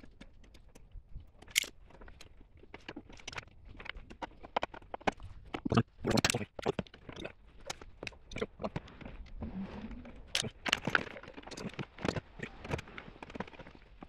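Irregular clicks, taps and rattles of hands working stiff wires and hardware at a metal electrical outlet box, with a few sharper knocks.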